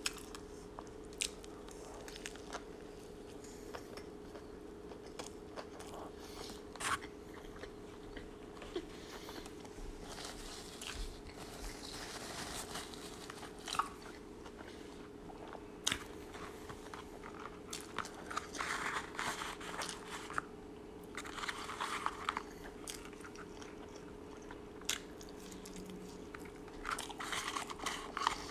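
Close-up mouth sounds of someone eating a McDonald's Big Mac: chewing and biting, with scattered sharp clicks and crunches and a few denser stretches of chewing, over a faint steady hum.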